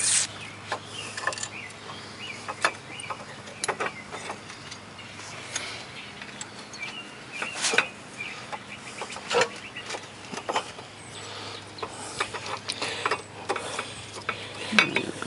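Irregular metallic clicks and clacks of new front brake pads being seated by hand into the caliper bracket on a 2005 Cadillac DeVille.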